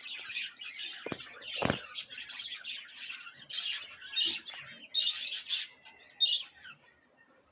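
A flock of caged budgerigars chirping and chattering in quick, overlapping bursts, tailing off near the end.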